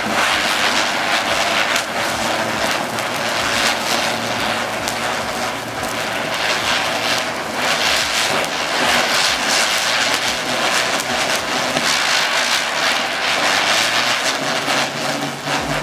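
Sri Kaliswari (Cock Brand) ground chakkar spinning on the floor, its burning charge giving a steady rushing hiss with many small crackles mixed in.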